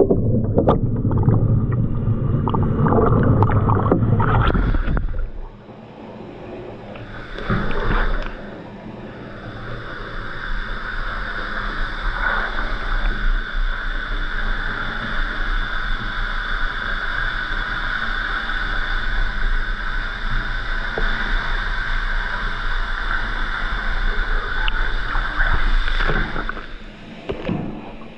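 Water sloshing loudly in a bathtub for the first five seconds or so, then a bath tap running steadily into the tub as it fills.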